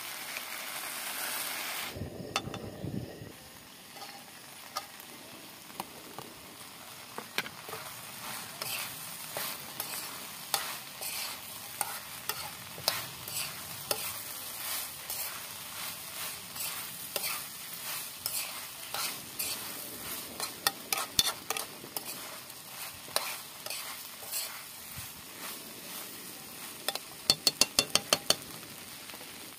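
Food sizzling in a hot wok over a portable gas burner, the hiss strongest in the first two seconds, with a metal spoon stirring and scraping through tofu, onion and chili. A little before the end comes a quick run of about eight sharp taps, the loudest sounds here, as the spoon knocks on the wok.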